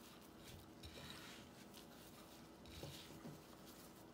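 Very faint rustling and light scraping of gloved hands pressing a bacon-wrapped chicken piece into breadcrumbs on a plate.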